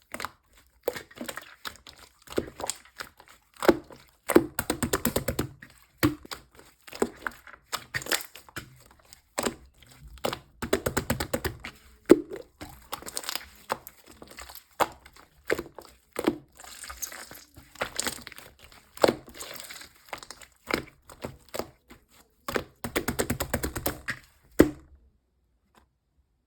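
Konjac-jelly slime being squeezed and poked by hand, giving sharp pops and clicks, with longer runs of crackling a few times. The handling stops shortly before the end.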